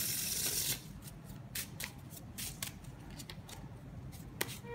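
A deck of playing cards being riffle-shuffled, the cards fluttering together in a dense rush in the first second. Lighter scattered clicks and taps follow as the deck is handled and squared, with a sharper tap near the end.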